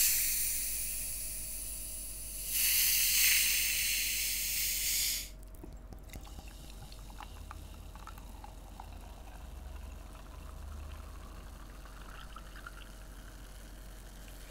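Carbonation hissing out of a large plastic Coca-Cola bottle as its cap is twisted open, in two bursts, the second cutting off sharply about five seconds in. Then cola is poured into a mug, fizzing softly and much quieter.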